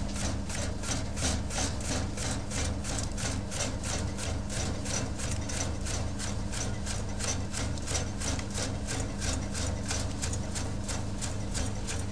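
Electric chip-slicing machine running: its motor hums steadily while the rotating cutter disc shaves tubers into thin chips with an even rasping stroke about three times a second.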